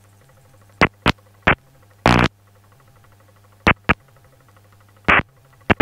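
Audio from a gyroplane's headset/radio feed in flight: a faint steady hum broken by about nine short, loud crackles of static, the longest about two seconds in.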